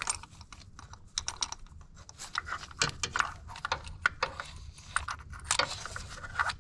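Light, irregular metallic clicks and rattles of a 14mm spark plug socket and extension being turned by hand, backing a loosened spark plug out of the engine.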